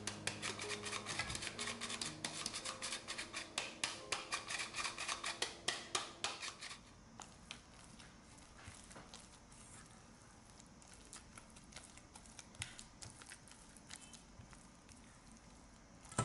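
A hand-held flour sifter clicking rapidly, about three to four strokes a second, as cake flour is sifted into a metal bowl. The clicking stops about seven seconds in. After that come only soft scraping and squelching as a spatula stirs the flour into the wet choux dough.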